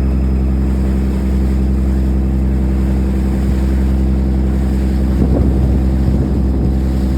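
Boat engine running steadily: an even, deep drone.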